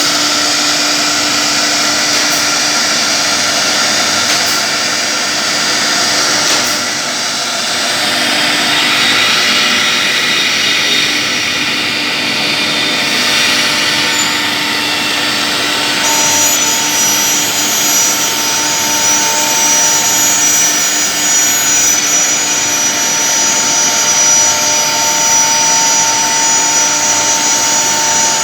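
Single-head CNC nesting router running and cutting, a loud steady machine noise. A new high whine joins it about halfway through.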